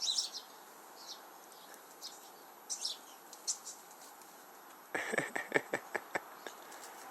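Sparrows chirping: scattered short, high chirps, then a louder quick run of about ten sharp notes about five seconds in.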